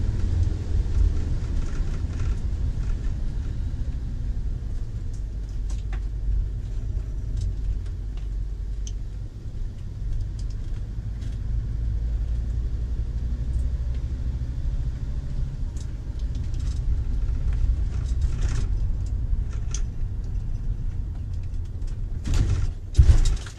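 Low, steady rumble of a motorhome's engine and tyres on a wet road, heard from inside the cab. A few faint clicks and rattles come through, with a louder knock near the end.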